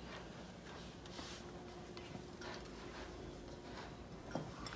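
Quiet room with faint ticks and light scraping from wooden craft sticks stirring glue in glass bowls, and a sharper click near the end.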